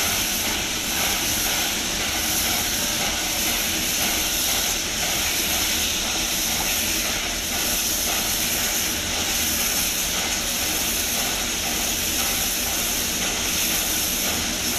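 Small tank steam locomotive hissing steadily as steam escapes, a constant rushing hiss with no puffing beat.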